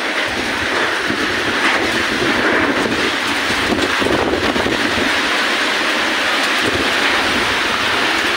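Storm of heavy rain and wind: a loud, steady rush of noise.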